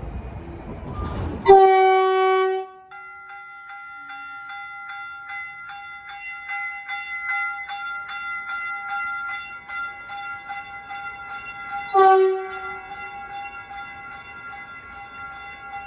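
Caltrain Stadler KISS electric multiple unit sounding its horn as it departs. A rumble gives way to a loud horn blast about a second and a half in, lasting about a second. A bell then rings about twice a second, and a short second horn blast comes near the end.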